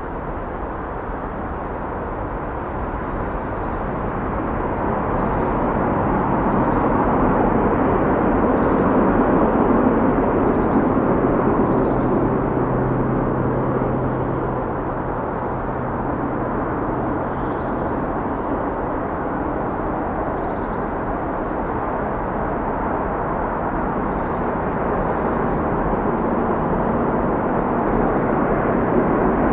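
Distant freeway traffic: a continuous rush of tyre and engine noise from many vehicles, swelling and easing as the traffic flow rises and falls. A low steady hum sits under it for a few seconds in the middle.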